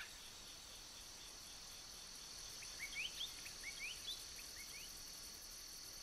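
Steady, high-pitched chorus of night insects, faint, with a scatter of short rising chirps from about halfway through.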